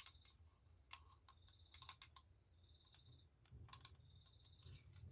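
Faint, scattered small clicks of Colt 1911 pistol parts being handled during reassembly, with the recoil spring under tension.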